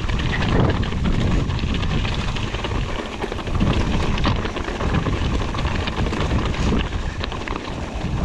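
Wind buffeting the microphone of a camera carried on a moving mountain bike, a loud rumbling rush with scattered clicks and rattles from the bike and trail.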